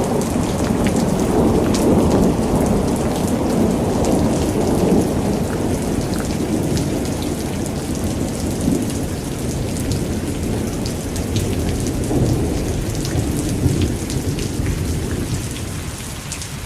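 Heavy rain pouring steadily, with small drop ticks, under a long rolling rumble of thunder that is strongest in the first few seconds and slowly dies away.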